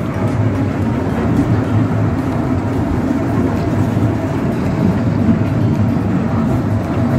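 Small amusement-park ride train running steadily along its narrow-gauge track, a continuous rumble heard from one of its open carriages.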